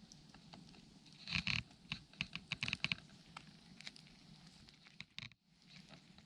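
Wood campfire crackling, with irregular sharp pops over a low, steady burn; the loudest quick cluster of pops comes about a second and a half in.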